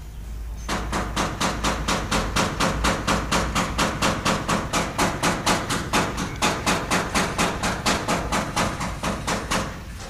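Rapid, evenly paced knocking, about five sharp strikes a second, starting about a second in and stopping just before the end, with a brief break partway through.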